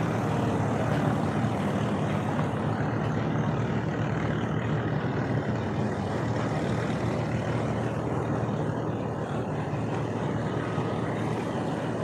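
An engine running steadily with a low drone, mixed with outdoor noise.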